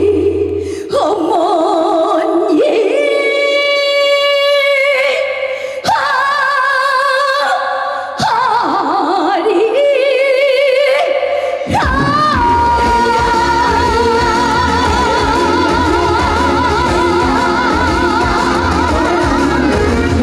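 A woman singing live with wide vibrato, almost unaccompanied for about the first twelve seconds, then a full band with bass comes in under a long held note.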